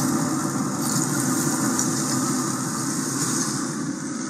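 Pellet grill's fan running with a steady whir and hiss, growing a little fainter near the end.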